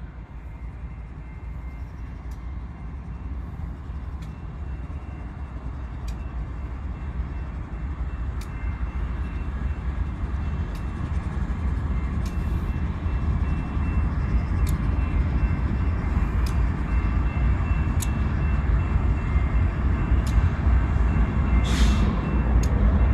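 Freight train passing close by: the low rumble of BNSF diesel locomotives and rolling wheels grows steadily louder as the lead units give way to double-stack intermodal well cars. Sharp clicks come about every two seconds, with a brief hiss near the end.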